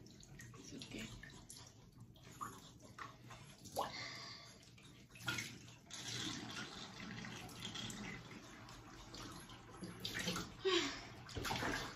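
Faint, uneven water sounds in a bathtub as a wet Shih Tzu is washed by hand, its soaked fur rubbed and squeezed, with a few brief louder splashes.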